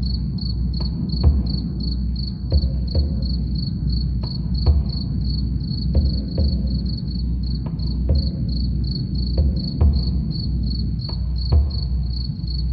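Crickets chirping steadily, about three chirps a second, over low drum beats that come at an uneven pace, roughly one or two a second.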